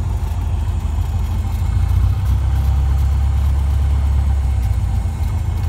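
Cessna 150's four-cylinder air-cooled engine ticking over at low taxi power, a steady low drone heard from inside the cabin, growing a little louder for a couple of seconds in the middle.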